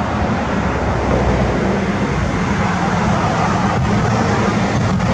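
Steady rumble of outdoor traffic noise, an even wash without distinct events.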